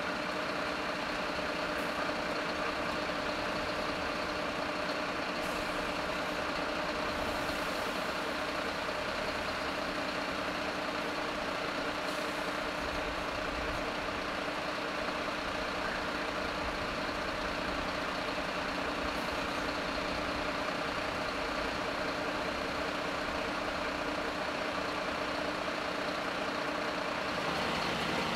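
Heavy engines idling at a fire scene: a steady, unbroken drone with constant held hums, shifting slightly near the end.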